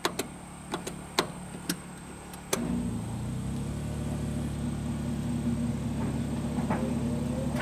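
Portable generator running, with a few light clicks as the dryer's start knob is pushed; about two and a half seconds in, the clothes dryer's motor starts and the generator takes the load, its steady hum jumping louder and building slowly as it works extra hard.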